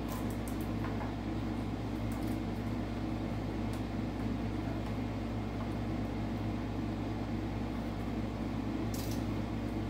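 A steady low mechanical hum throughout, with a few faint ticks and rustles as red-backed double-sided adhesive tape is pressed along the edge of a plastic front splitter.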